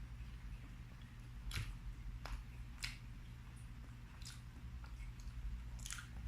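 Soft chewing and wet mouth smacks from eating cheese-topped French fries, a handful of faint separate smacks over a low steady hum.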